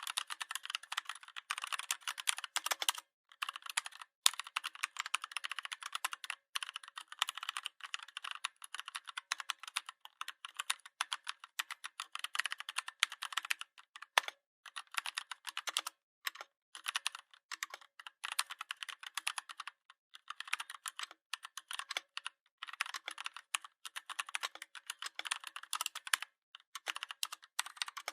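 Computer keyboard typing: fast runs of keystroke clicks broken by brief pauses, several times, with a low clack here and there.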